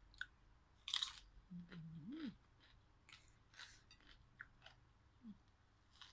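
A person biting and chewing crunchy raw vegetables close to the microphone. A sharp crunch comes about a second in, followed by softer chewing crunches, with a short 'mm' hum around two seconds in.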